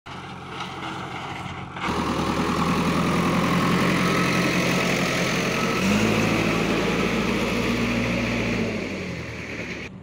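Diesel engine of a JCB 3DX backhoe loader (Kirloskar engine) running close by. It comes in abruptly about two seconds in, picks up in pitch around six seconds in, then drops back and fades near the end.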